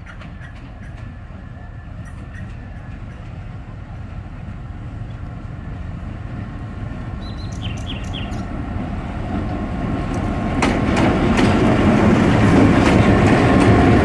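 EMD G-16 diesel-electric locomotive running slowly toward and past, its two-stroke V16 diesel rumbling and growing steadily louder as it nears. From about two-thirds of the way in, wheels click over the rail joints.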